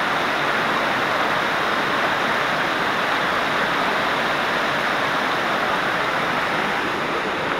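Waterfall: water pouring over a drop and splashing into the pool below, a steady, even rush.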